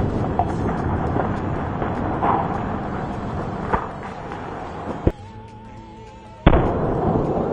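Firework explosions and crackling from canister shells, with several sharp bangs. About five seconds in, the noise drops away under a warbling musical tone, and a loud bang cuts back in about a second and a half later.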